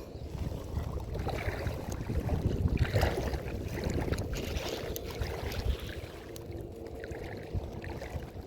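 Water splashing and sloshing as a hooked snakehead is brought in, loudest about two to three seconds in.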